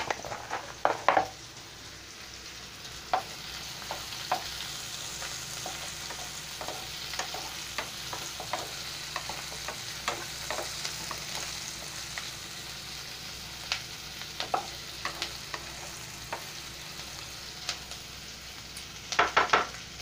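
Sliced onions and curry leaves sizzling in hot oil in a nonstick pan, being sautéed. A slotted spatula scrapes and knocks against the pan in a quick run of stirring strokes in the first second and again near the end, with scattered light ticks in between.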